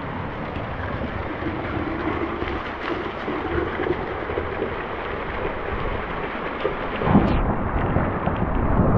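Steady rain with runoff water splashing down from the roof edge. About seven seconds in it swells into a louder, deeper rushing.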